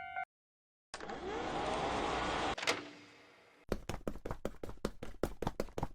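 A Japanese railroad-crossing warning bell's repeating two-tone chime cuts off right at the start. After a brief gap come a hissing burst of noise ending in a sharp click, then a fast, even run of mechanical clicks, about seven a second: cartoon sound effects.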